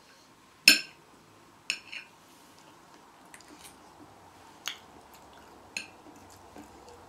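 Cutlery clinking against ceramic plates during a meal: a handful of sharp, ringing clinks, the loudest a little under a second in, with fainter ticks between.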